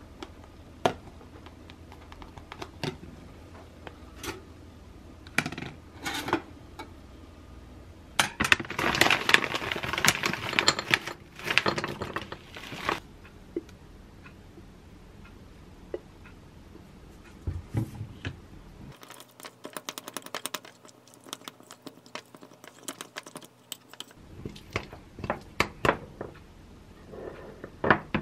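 Close-up kitchen handling sounds: scattered clicks and knocks as a bagel is fitted into a pop-up toaster, a dense stretch of rustling and scraping about eight to thirteen seconds in, and near the end a spoon tapping and scraping in a glass bowl as yogurt is stirred.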